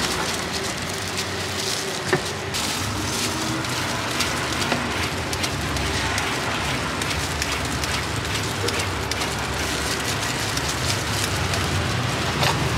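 A hand peeler scraping the skin off a carrot in repeated short strokes, crackling over a steady background hiss.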